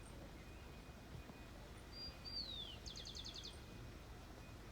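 Birds calling: a high whistled note that slides downward about two seconds in, followed at once by a quick trill of about eight short notes, over a faint low steady rumble.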